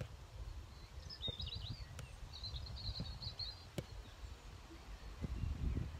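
Wind rumbling on the microphone, with a small bird twittering in two short bursts in the middle. Two faint sharp ticks come near the middle.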